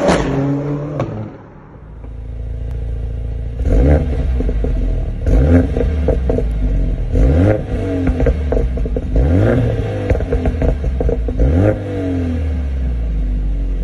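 Mercedes-AMG CLA 45 S's turbocharged 2.0-litre four-cylinder through an Akrapovic exhaust, revved in about five sharp blips, each rising and falling, with crackles and pops on the overrun between them. It idles steadily before and after the blips. In the first second or so the car is heard pulling away and fading.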